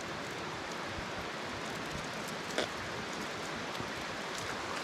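Small mountain creek flowing, a steady rushing of water, with one light click about two and a half seconds in.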